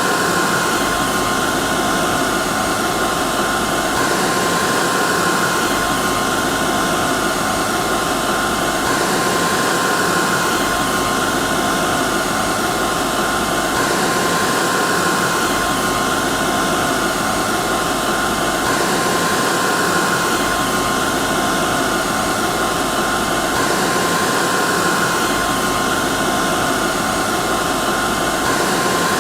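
Hair dryer running steadily: an even rush of air with a steady whine from the motor. The pattern repeats about every five seconds, as a looped recording does.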